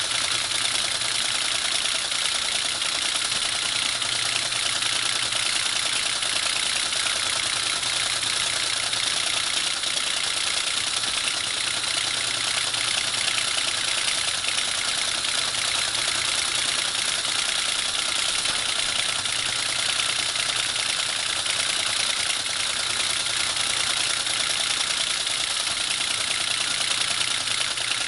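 Teletype ASR 33 printing received text at 110 baud: a steady, rapid mechanical clatter of the print mechanism, with a low hum underneath. Its receive section is now working, with the carriage return completing properly.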